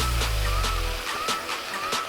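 Background music from a rap beat: a deep bass note sliding slightly down and stopping about a second in, with a short high synth figure repeating about twice a second over ticking hi-hats.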